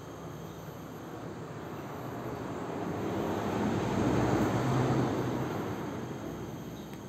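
A vehicle passing by: a rushing noise that swells to its loudest about four to five seconds in and then fades away.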